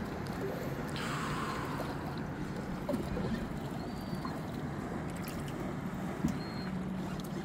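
Boat engine running steadily, with water sloshing and splashing against the hull; a louder rush of water about a second in.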